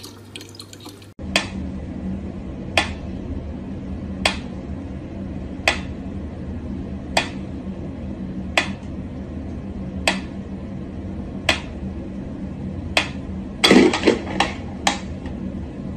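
A mechanical pyramid metronome ticking slowly and evenly, about one tick every second and a half, with a louder burst of sound near the end.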